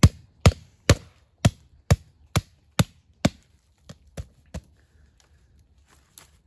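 Hatchet chopping through a deer's sternum: eight sharp, evenly spaced blows about two a second, then three lighter taps about four seconds in and a single knock near the end.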